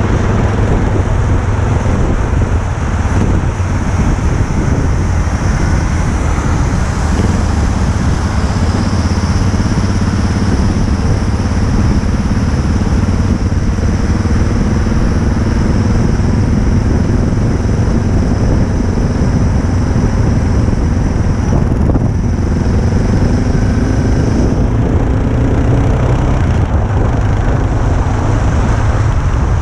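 Motorcycle running on the move, its engine note under a heavy, steady rumble of wind on the microphone. The engine pitch climbs for a few seconds past the middle.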